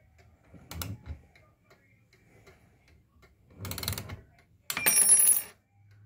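Wind-up clock ticking faintly while it is handled: a knock about a second in, a rattle near four seconds, and a loud metallic clatter with a high ringing jingle just before five seconds.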